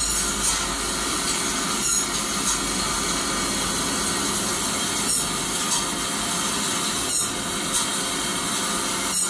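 Steady mechanical noise like a motor-driven power tool running, with a brief break in it roughly every two seconds.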